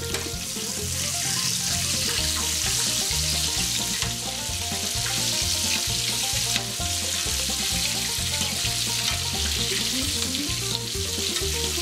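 Battered chicken wings frying in hot canola oil in a cast iron skillet: a steady sizzle throughout. Background music with a steady beat plays underneath.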